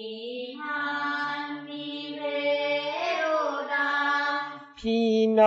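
A voice chanting a classical Chinese poem in its Korean reading, in the traditional drawn-out hansi chanting style. Each syllable is held as a long note that slowly rises and falls, with a short break near the end.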